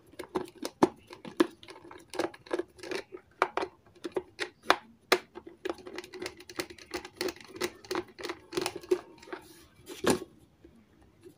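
Rapid, irregular light clicks and taps of small parts being handled and fitted into a rechargeable emergency light during reassembly.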